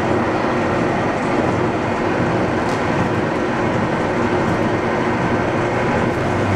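Homogenizing emulsifying mixer running, a loud steady machine whir with a faint low hum.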